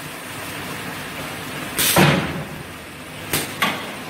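Pneumatic press head of a high-frequency PVC fabric welding machine cycling: one loud burst of air with a thud about two seconds in, then two short bursts near the end, over a steady machine noise.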